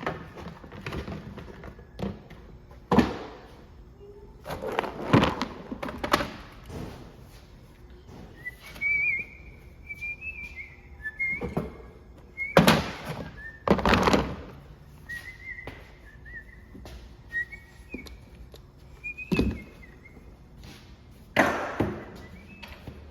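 Irregular knocks and clunks, about a dozen, the loudest near 3, 5, 12 to 14 and 21 seconds in, typical of parts and tools being handled during repair work. Through the middle a thin, wavering whistle comes and goes.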